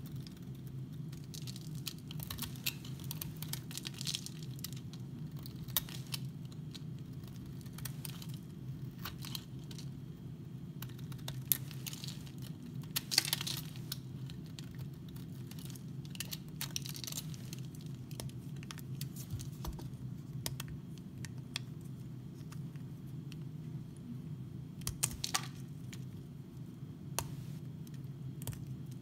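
Snap-off utility knife blade carving and scraping flakes off a dry, varnish-coated bar of soap: irregular crisp scrapes and cracks as shavings break away, over a steady low hum. Near the end, fingers crumble a shaved piece of soap.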